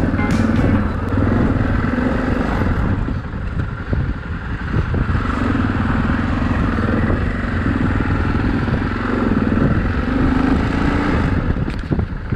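Yamaha Ténéré XT660Z's single-cylinder engine running as the motorcycle is ridden, its note swelling and easing with the throttle.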